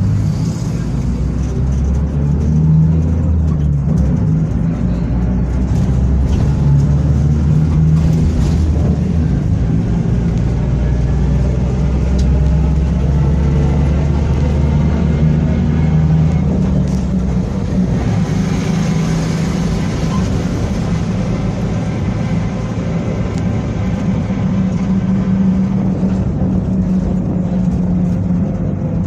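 Diesel engine of a Mercedes-Benz OF-1722M city bus running under way, with its driveshaft (cardan) droning. The deep note shifts about two-thirds of the way through.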